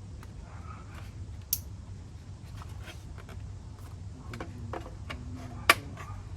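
Small clicks and handling noises of motorcycle blinker wiring connectors and plastic parts being fitted together, with a sharp click about a second and a half in and a louder snap near the end, over a low steady hum.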